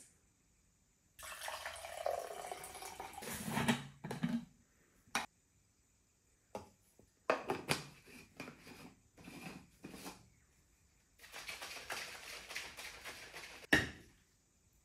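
A protein shake being made in a plastic shaker bottle: liquid poured in for a couple of seconds, then a run of clicks and knocks as the bottle and lid are handled, then about two seconds of shaking, ending in one sharp knock.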